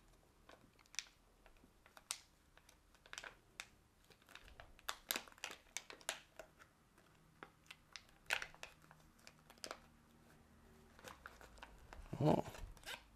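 Small plastic bag crinkling as it is unwrapped by hand: scattered faint crackles and rustles, louder near the end.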